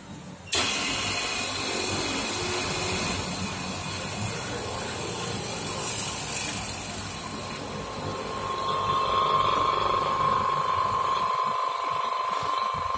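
Vacuum pump of a phone-screen laminating machine switching on suddenly about half a second in and running steadily, a loud hiss of air being drawn out of the sealed chamber. A steady whine joins it in the second half as the vacuum deepens.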